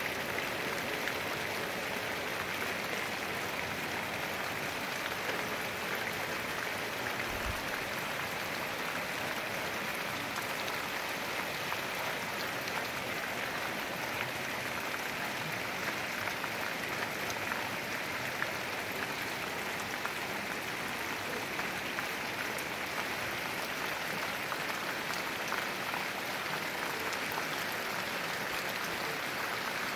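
Heavy rain falling steadily, an even hiss of downpour with fine scattered ticks of individual drops.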